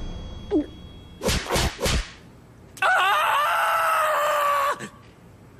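Cartoon character's long, high, strangled cry, held for about two seconds with its pitch sagging slightly, as he chokes after eating poisonous fugu. Three quick thuds come just before it.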